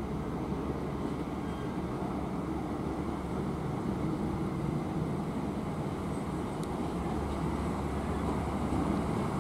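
TEM18V diesel shunting locomotive approaching at low speed, its diesel engine running with a steady low rumble that grows a little louder as it nears.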